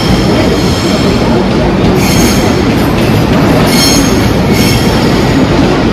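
Melbourne Metro electric suburban train running along the platform with a steady rumble. High-pitched wheel squeal comes in short bursts, about two, three and a half, and four and a half seconds in.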